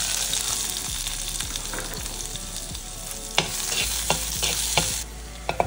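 Chopped onions sizzling in hot oil with cumin seeds, stirred with a metal spatula that clicks against the pan a few times. The sizzle cuts off suddenly near the end.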